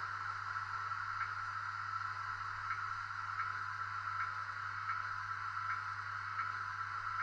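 Howes V4 DCC sound chip in a Hornby Class 56 model locomotive playing the diesel engine at idle through the model's small speaker. It is a steady, thin engine drone with a faint tick repeating about every three-quarters of a second.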